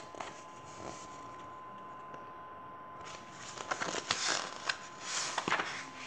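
Paper pages of a paperback book rustling and flapping as it is handled close to the microphone, in irregular bursts over the last three seconds, with a few sharp clicks.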